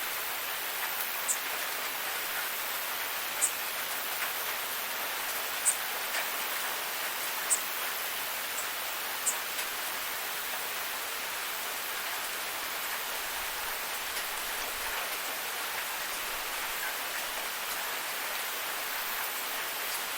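Steady hiss of falling rain. A short high chirp from a background insect sounds about every two seconds through the first half.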